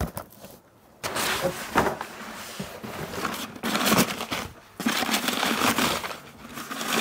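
Brown kraft packing paper rustling and crinkling as it is pulled out of a cardboard box from around a ceramic pot. It starts about a second in, with a short pause just past the middle.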